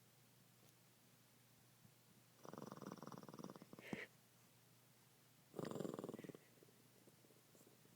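Shih Tzu snoring in its sleep: two rattling snores about three seconds apart, the first ending in a short sharp snort.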